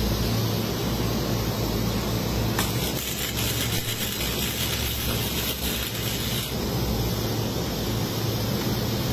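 Electric arc welding on a steel container gooseneck tunnel: a dense crackling, sizzling arc that starts about two and a half seconds in and stops about four seconds later. Under it runs a steady low hum.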